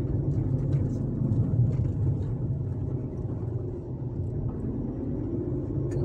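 Car driving along a paved road, heard from inside: a steady low rumble of engine and tyre noise.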